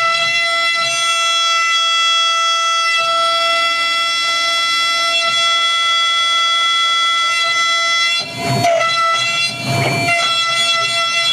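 High-frequency spindle of a gantry CNC engraving machine whining at a steady high pitch as it spins a 3 mm engraving cutter. Twice near the end there is a short burst of scratchy cutting noise, with the whine briefly sagging, as the cutter bites into the metal stamp.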